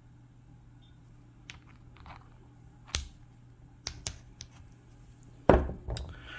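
Cut rock pieces clicking and knocking as they are handled and set down: several sharp clicks, then a louder thump about five and a half seconds in, over a low steady hum.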